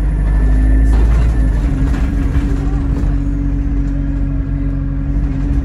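Interior noise of a single-deck bus: a steady engine hum with a deep rumble under it, heard from inside the passenger saloon.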